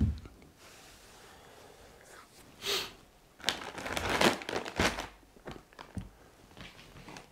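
A thump at the start, then plastic packaging crinkling and rustling as it is handled, in a run of short bursts about three to five seconds in.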